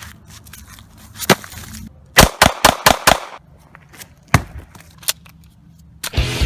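9mm pistol gunshots: a single shot about a second in, a quick string of about five shots between two and three seconds, another single shot past four seconds, then a louder burst of noise near the end.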